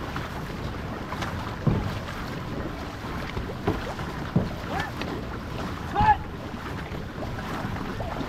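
Water rushing and splashing along a racing outrigger canoe's hull as the crew paddles hard, with wind on the microphone. Sharp splashes from the paddles and wash come through now and then, the loudest about six seconds in.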